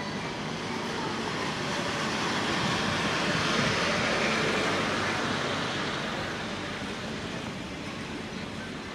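A vehicle passing by: a rushing road noise that swells to a peak about four seconds in and then fades away.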